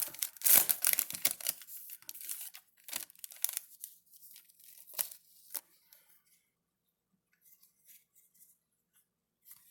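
Foil trading-card pack wrapper being torn open and crinkled, loudest in the first second or so. A few softer rustles and clicks of handling follow, then it goes nearly quiet.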